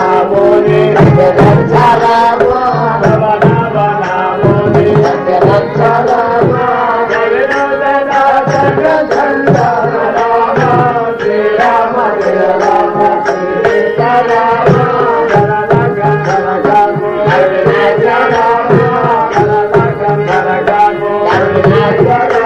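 Devotional bhajan music with tabla drumming, and a wavering melody over a steady held drone note.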